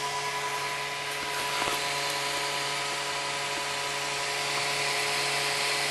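FlashForge Creator 3D printer's extruder stepper motor running steadily during filament loading, driving PLA filament through the heated nozzle. A steady whine of several tones over a constant hiss.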